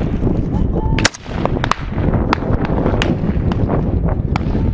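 Scattered gunfire in a firefight: about ten single rifle shots at uneven intervals. They sound over a steady low rumble of wind or movement on the microphone.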